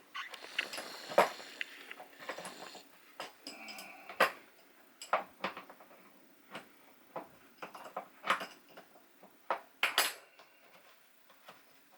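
Scattered clicks, clinks and knocks of hands and tools working on the fittings of an RV toilet, with a brief scrape or creak about four seconds in.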